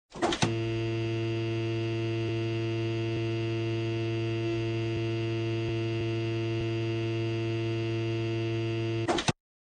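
Steady electrical hum of a refrigerator running, heard from inside the fridge, with a few short knocks near the start and again near the end, after which the sound cuts off suddenly.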